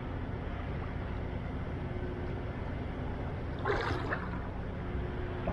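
Steady low rumble of a large ship's engines, with a faint constant hum. A short, louder noise breaks in about two-thirds of the way through.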